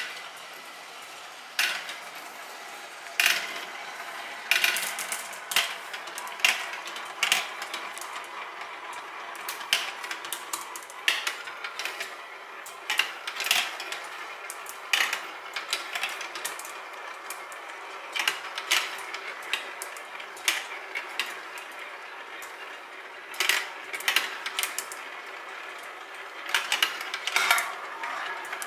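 Marbles rolling through a plastic marble run, clacking against the track, the funnel bowls and each other in irregular sharp clicks, over a steady rolling hum.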